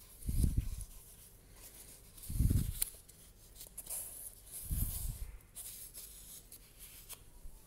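Fingers rubbing and flexing a suede wedge sandal, lifting its unglued sole piece, making a soft scratchy rustle, with three dull low thumps from the handling.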